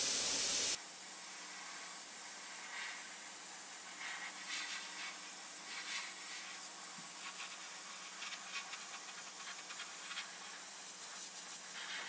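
Airbrush hissing steadily as it sprays paint, louder for the first second, then a softer airy hiss with small swells as the trigger is worked.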